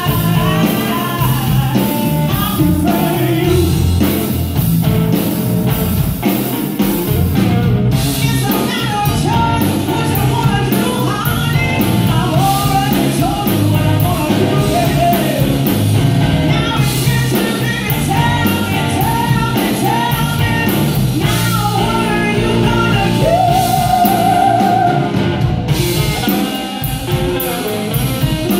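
Live blues band performing through a PA: a woman singing lead over electric guitar, bass guitar and drum kit.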